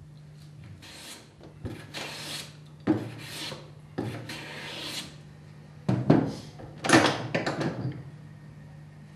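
Hand plane cutting shavings from a rough-sawn timber surface in about six strokes, each a rasping swish that starts with a sharp bite of the blade.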